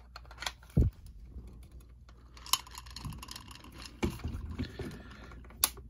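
Hard plastic parts of a 12-inch Marvin the Martian robot action figure knocking and clicking as the claw arm's shoulder joint is worked into the torso socket. There are scattered light clicks and a duller thump about a second in.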